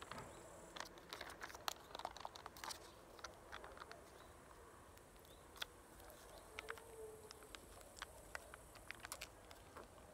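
Faint crinkling and a quick run of small clicks as a drink sachet is handled and torn open, thinning out to a few scattered ticks afterwards.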